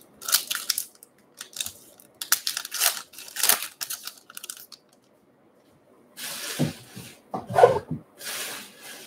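A trading-card pack's wrapper being torn open by hand: a run of quick rips and crinkles over the first four seconds or so. After a short pause there is more rustling and crinkling.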